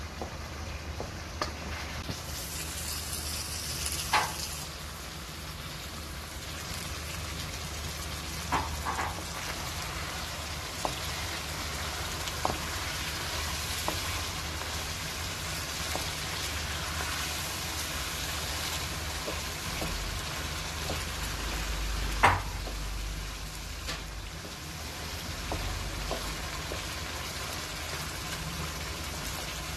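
Mutton and tomato masala sizzling as it fries in a karahi wok, stirred with a wooden spatula that knocks against the pan now and then, the sharpest knock about two-thirds of the way through.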